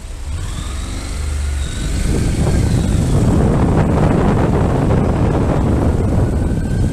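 Motorcycle riding through city traffic, with rumbling and wind rushing on the microphone that grows louder from about two seconds in as it draws alongside a bus. An emergency-vehicle siren wails in the background, its pitch slowly rising and falling.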